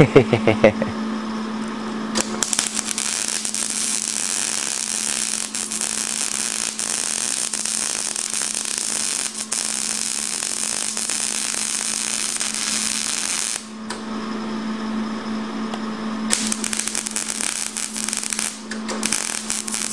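Electric arc welding on steel mesh and bodywork: a long crackling sizzle from the arc, from about two seconds in to near fourteen seconds, then two shorter runs near the end. A steady low hum sits underneath.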